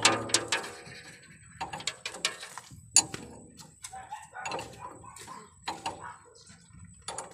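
Wrench clinking on the nut of a steering tie-rod end: a string of irregular sharp metal clicks and taps as the nut is worked loose.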